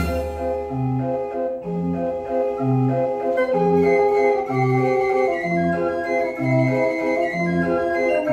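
Dutch street organ (draaiorgel) 'De Koppelpaarden' playing through its pipes. A loud passage cuts off at the start and a new tune sets in within the first second. Its bass notes alternate between two pitches about once a second, with chords on the off-beats under the melody.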